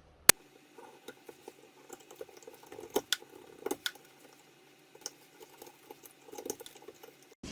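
Irregular small clicks, taps and rustles of electrical wiring and tools being handled at a switch box, with one sharp click just after the start.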